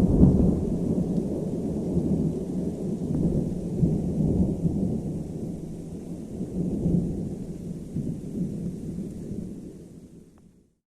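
Thunder from a nearby lightning strike: a loud crash at the start that rolls on as a long, low rumble with a few swells, slowly dying away, over a faint hiss of rain. The strikes in this storm, a few kilometres off and strong enough to shake everything, are taken by the uploader for positive lightning.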